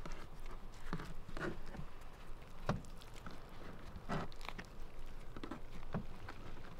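Hands folding and rolling a whole-wheat tortilla wrap on a plastic cutting board: a scattering of soft rustles and light taps.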